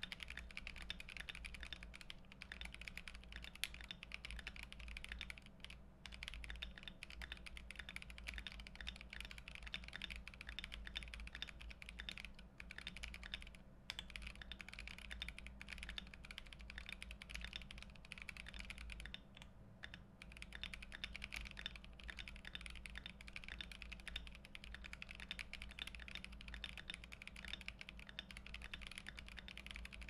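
Continuous typing on a GMMK Pro custom mechanical keyboard built with tactile Boba U4T switches lubed with Tribosys 3203, an FR4 plate, plate and case foam, and Akko ASA keycaps: a steady stream of keystrokes broken by a few brief pauses.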